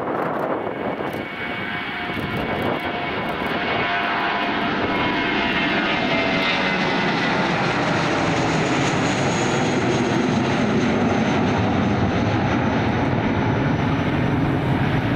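Twin jet engines of an Airbus A320 at takeoff power as it climbs out overhead: a steady rushing roar that grows louder over the first few seconds, with whining tones gliding lower in pitch.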